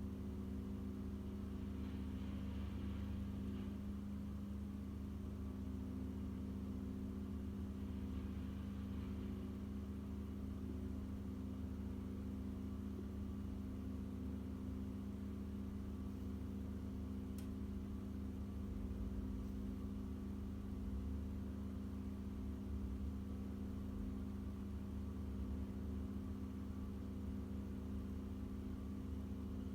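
An engine running steadily at an even pitch, a low drone that holds unchanged, with a single faint click about halfway through.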